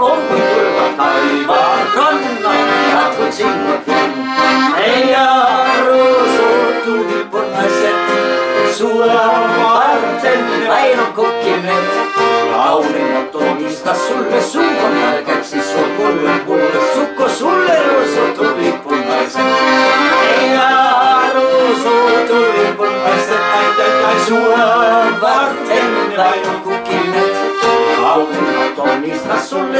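Ballone Burini Cantus 34a piano accordion playing the melody, with a strummed acoustic guitar keeping the rhythm underneath; an instrumental passage with no singing.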